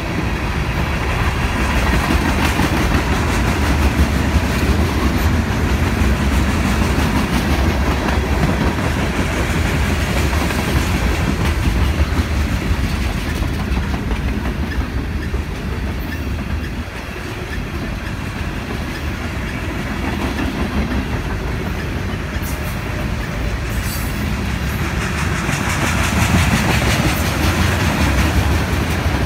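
Freight cars of a long freight train rolling past, a mix of boxcars, refrigerator cars and steel-coil cars: a steady rumble of steel wheels on rail. It eases slightly a little past halfway and swells again near the end.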